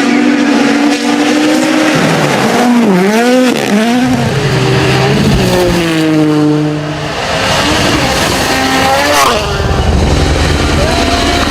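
Rally car engine heard from on board, its revs rising and falling sharply several times through gear changes and corners, with a long drop in pitch midway and a steep climb near the end.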